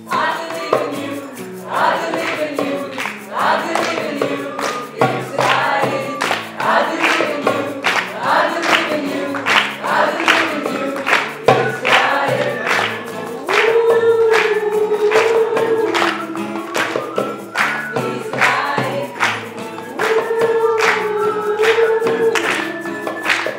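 A small group of men and women singing together in unison, with an acoustic guitar strummed in accompaniment and a steady beat from hand-held percussion; twice the voices hold a long note.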